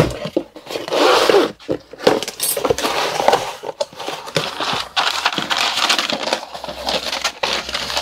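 Packaging being torn and crinkled open by hand, with scattered clicks and knocks from handling.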